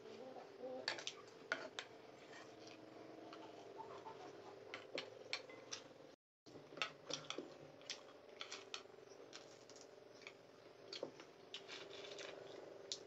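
Eating utensils clicking and tapping against bowls: many light, irregular clicks over a faint steady hum, with a brief gap of silence a little after the middle.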